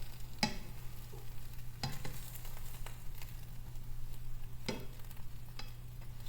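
Grilled cheese sandwich sizzling in a buttered frying pan, the cheese starting to burn. Four or five sharp clicks, about a second apart, sound over the steady sizzle.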